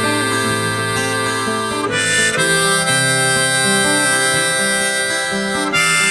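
Background music: an instrumental break of a song led by harmonica over guitar.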